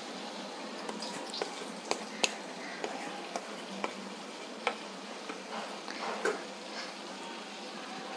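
Sweet rice, banana and jaggery appam fritters deep-frying in hot oil in a kadai: a steady sizzle with scattered sharp clicks and pops as a spoon and a slotted ladle are worked in the pan.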